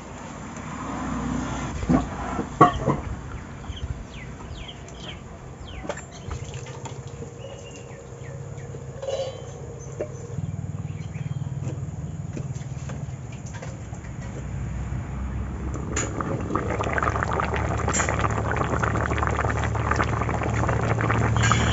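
Fried pangas fish pieces tipped from a steel bowl into a wok of simmering curry, with sharp metal clinks of bowl and spatula about two seconds in. Later the curry bubbles on the boil, getting louder near the end.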